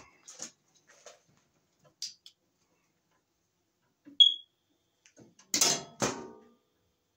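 Wire and hand tools being handled at an open breaker panel: light rustles and clicks, a short high-pitched chirp about four seconds in, then two loud, sharp handling noises in quick succession about a second and a half later.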